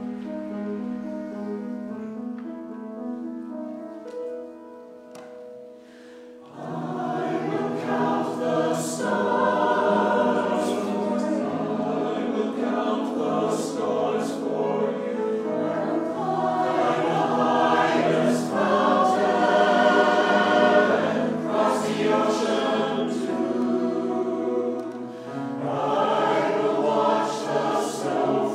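Church choir singing with instrumental accompaniment. It opens with a soft instrumental passage of held notes, and the choir comes in loudly about six and a half seconds in.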